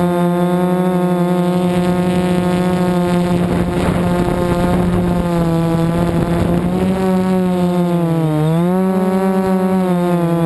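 Multirotor drone's motors and propellers whining steadily, the pitch dipping as throttle is cut and rising again about eight seconds in. Wind buffets the microphone in the middle of the stretch.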